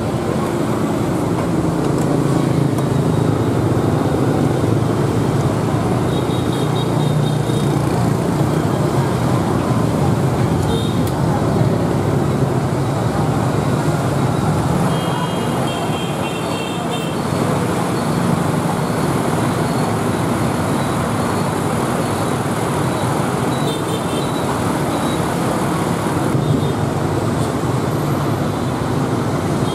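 Steady street traffic noise from passing motorbikes and cars, with a few short high beeps now and then.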